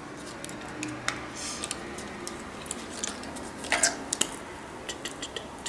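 Small clicks and rustles of a Kiko lipstick and its packaging being handled and opened, with a quick cluster of sharper clicks about four seconds in.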